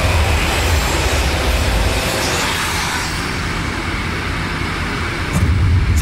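Black metal playing from a vinyl record: a dense, steady wall of distorted guitars over drums with a heavy low end.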